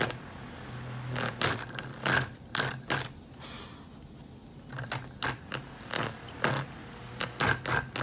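Small handheld toy fan running with a steady low hum while a cat paws at its spinning plastic blades, making many irregular clicks and scrapes, more closely spaced near the end.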